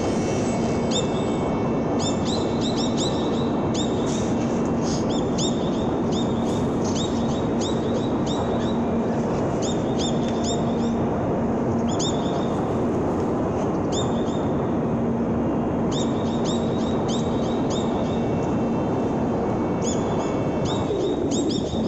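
Small birds calling in quick runs of short, high, falling chirps, repeated through the whole stretch, over a steady rushing background noise and a low hum that fades in and out.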